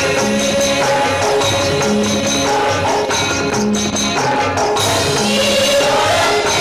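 A Tamil song played over stage loudspeakers, with a steady beat and jingling percussion.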